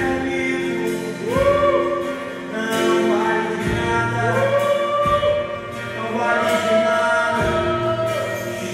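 Gospel worship music: singing in three long held phrases over sustained instrumental accompaniment with steady low bass notes.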